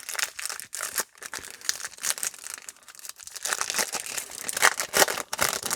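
Foil wrapper of a Topps Chrome baseball card pack crinkling and tearing as the pack is opened, in quick irregular crackles.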